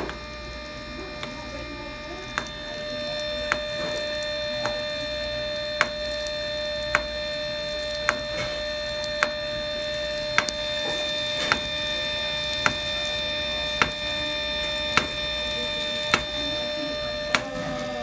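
Zebra 110Xi4 thermal label printer clicking sharply about once a second over a steady mechanical hum, the repeating click that goes with the printer's error.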